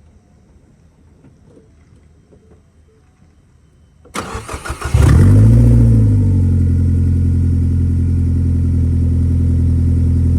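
2016 Ford Focus SE's replacement engine being started: the starter cranks about four seconds in, the engine catches after about a second, flares up briefly, then settles into a steady idle.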